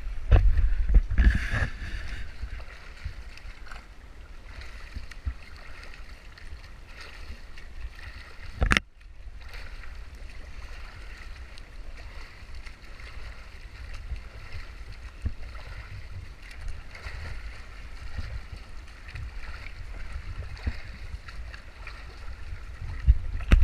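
Splashing water from a swimmer swimming freestyle, heard as a steady hiss, with wind rumbling on the microphone, heaviest in the first two seconds. There is one sharp knock about nine seconds in.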